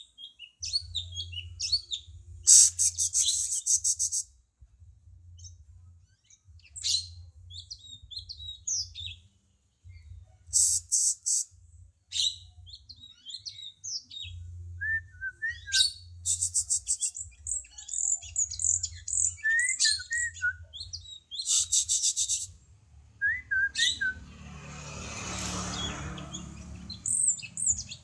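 Cungko bird singing: quick bursts of high chirps, trills and fast rattling notes, with a low rumble pulsing underneath. A broad rush of noise swells and fades near the end.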